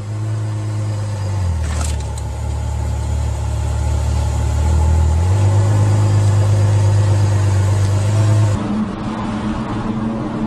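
Ferrari F12berlinetta's V12 engine running at low revs while the car inches along, its steady drone shifting pitch in a couple of steps, with a brief click about two seconds in. Near the end it cuts to the quieter running noise of a different car.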